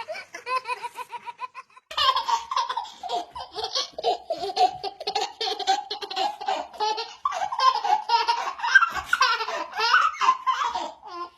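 A young child laughing hard in rapid, high-pitched bursts. The laughter is lighter at first, pauses briefly about two seconds in, then runs on almost without a break.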